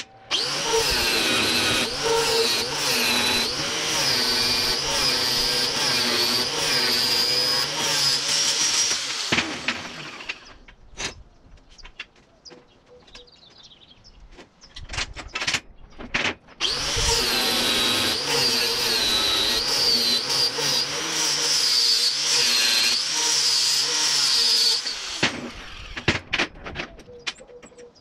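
A handheld electric power tool working steel in two long runs of about nine and eight seconds, its motor whine wavering in pitch as the load on it changes. Between the runs come scattered knocks of metal being handled.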